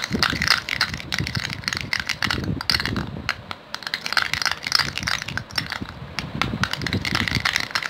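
Metal spoon scraping and clinking against a stainless steel bowl in quick, irregular strokes, crushing hibiscus petals into rose water.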